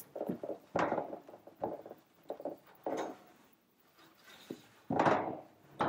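Irregular knocks, bumps and scrapes of wood-framed corrugated metal shower wall panels being handled and set in place on a shower base, the longest scrape about five seconds in.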